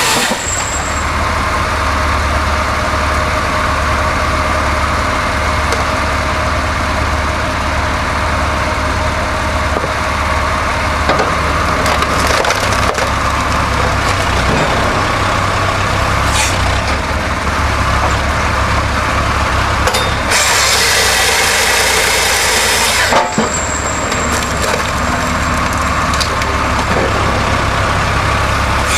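A wood-processing machine working through wood: a steady engine drone under continuous splintering and crunching of wood, with a brighter, louder rush of noise lasting about three seconds a little past two-thirds of the way in.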